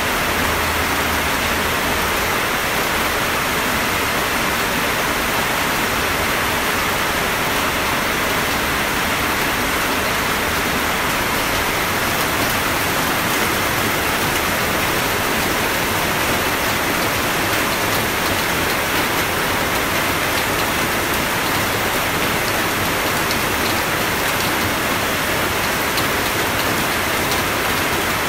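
Steady rain falling, a dense, even hiss that holds at the same level throughout.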